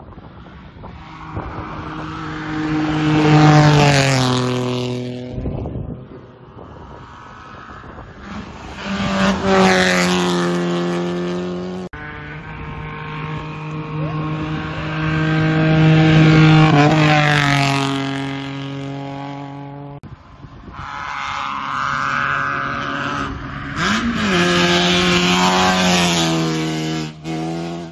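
Rally cars at full throttle passing close on a gravel road, four passes one after another. Each engine note swells in loudness and then drops in pitch as the car goes by.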